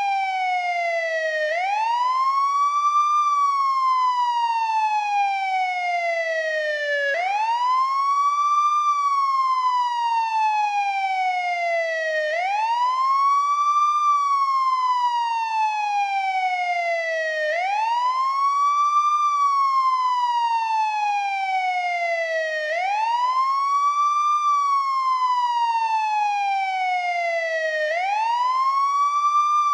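American police siren sounding its wail: the pitch sweeps up quickly, then glides slowly back down, repeating about once every five seconds.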